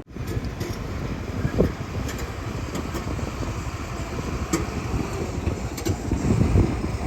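Heavy diesel earthmoving machinery running steadily, with a few short knocks and clanks.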